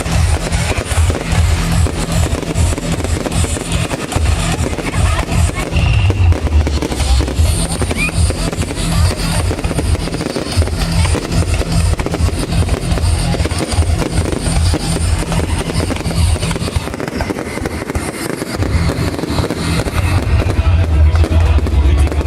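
Fireworks bursting and crackling in a rapid, continuous barrage over loud music with a heavy bass beat.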